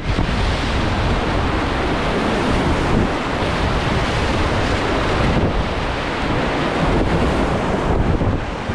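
Whitewater rapids rushing loudly around a kayak running class 3/4 water, with wind buffeting the camera microphone.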